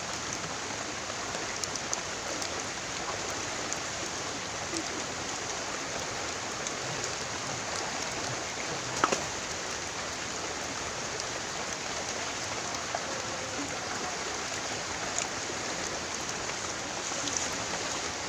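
Steady hiss of running water or rain, with faint scattered ticks and one sharp click about halfway through.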